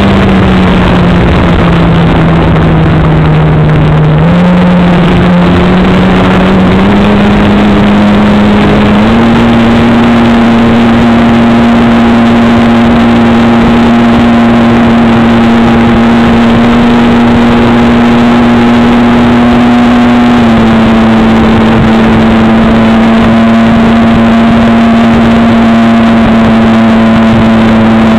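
Model airplane's engine running close to an onboard camera's microphone, loud and steady. Its pitch sits low for the first few seconds, climbs in steps over the next several seconds as it is throttled up, then holds high and even.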